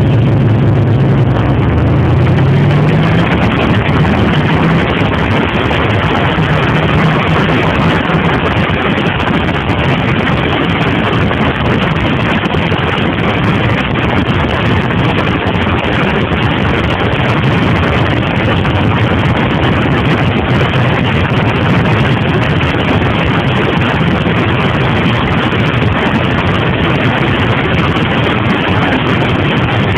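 2002 Suzuki TL1000R's V-twin pulling away, its pitch rising over the first few seconds. After that comes a loud, steady rush of wind on the bike-mounted microphone over the engine at riding speed.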